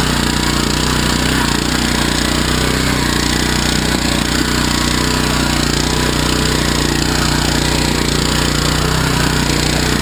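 AXO Garden two-wheel walk-behind tractor's small engine running steadily under load, driving the rototiller tines through the soil.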